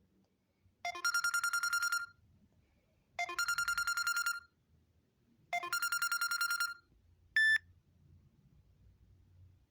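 Samsung Galaxy Grand Core phone playing a trilling telephone-style ringtone: three rings of about a second each, roughly two seconds apart, followed by one short high beep.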